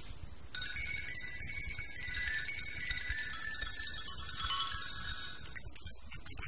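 A cluster of high, ringing, chime-like notes shimmering together, starting about half a second in and dying away near the end.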